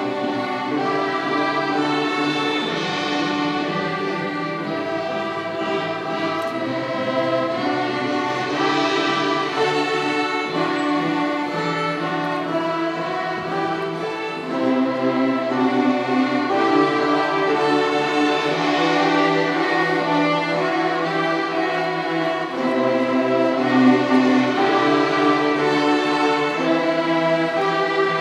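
Fifth-grade string orchestra of violins, violas and cellos playing, bowing held notes together; the music gets louder about halfway through.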